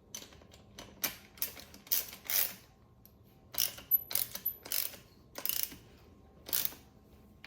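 Mechanical ratcheting clicks in about a dozen short, irregular bursts, from a ratchet mechanism being worked by hand.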